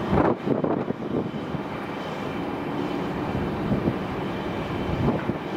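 Jet engines of a four-engine widebody airliner running with a steady rumble, with a few uneven bumps in the first second.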